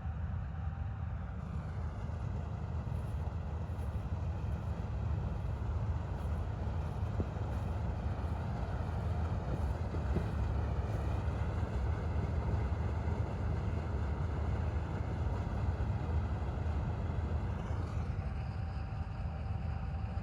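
Combine harvesters running steadily while harvesting paddy, a continuous deep engine rumble. Extra higher-pitched machine noise comes in about two seconds in and drops away near the end.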